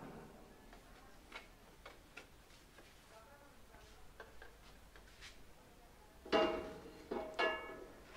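Sugarcane stalks knocking against the stainless-steel feed tray of a sugarcane juice crusher as they are fed in: faint scattered clicks, then two louder knocks with a brief metallic ring, a little after six seconds and about a second later.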